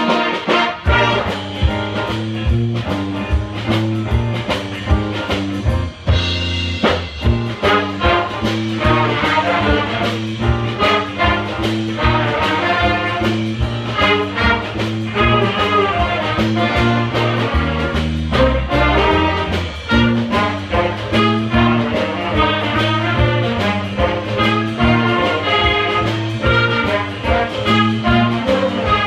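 Student big band playing a swing tune live, saxophones and brass over a steady beat.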